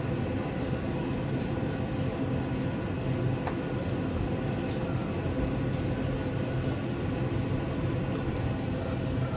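A steady mechanical hum with even background noise, with a couple of faint ticks near the end.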